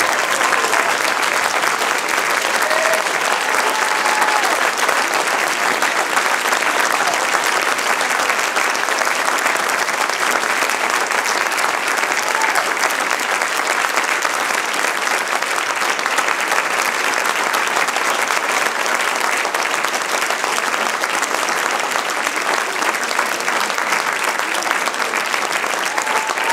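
Theatre audience applauding steadily, with a few brief voices calling out over the clapping.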